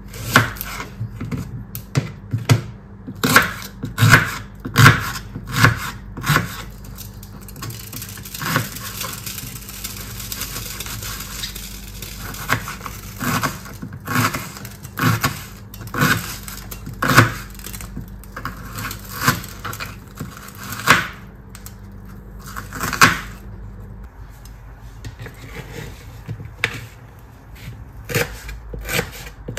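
Kitchen work: irregular wooden knocks and clatter of utensils and dishes on a counter or cutting board, about one a second, over a steady low hum. A hiss comes in about eight seconds in, and it and the hum stop together about 24 seconds in.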